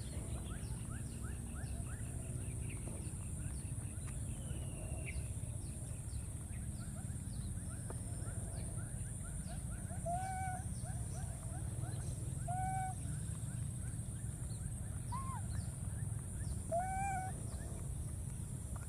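Baby macaques giving short rising-and-falling coo calls, four of them a couple of seconds apart in the second half, one higher pitched than the rest, over a steady low background rumble.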